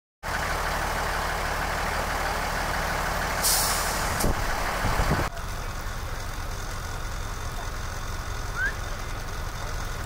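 Vehicle engines idling with a steady low hum, broken by a brief hiss about three and a half seconds in and a few knocks. After an abrupt change about five seconds in, a quieter steady outdoor ambience of idling vehicles.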